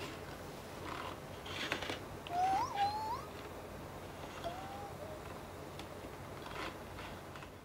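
LOVOT companion robot making two short, creature-like cooing calls: a wavering one that rises and falls about two seconds in, and a shorter, gently arching one a couple of seconds later.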